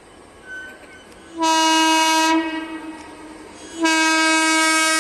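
Horn of an Indian Railways WAG-9HC electric locomotive: one blast of about a second, then a second, longer blast about a second and a half later.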